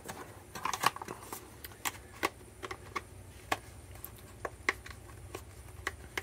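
Hard plastic parts of a Masters of the Universe Origins Point Dread playset clicking and knocking against each other as the top portion is pushed and worked onto the base, trying to fit it in place. An irregular run of sharp clicks.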